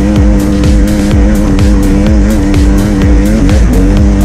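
A music track with a fast, steady beat, laid over a Sherco two-stroke dirt bike engine running at a steady speed, its pitch dipping briefly near the end.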